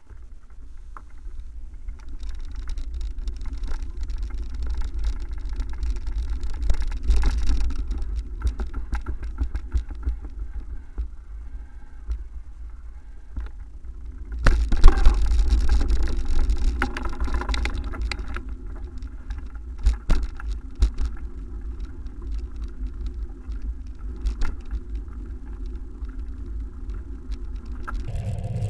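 Wind buffeting the microphone of a bicycle-mounted camera while riding, with rattles and clicks from the bike jolting over paving stones and rough, patched asphalt. A louder rush comes about halfway through.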